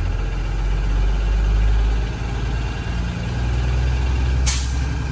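2022 Blue Bird Vision school bus's diesel engine idling steadily. About four and a half seconds in comes a short, sharp burst of hissing air from the air brake system.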